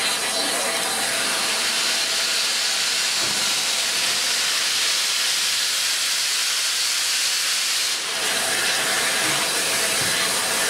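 Steady loud hiss of steam venting from the open cylinder drain cocks of rebuilt Bulleid Battle of Britain class Pacific 34059 as it starts slowly away.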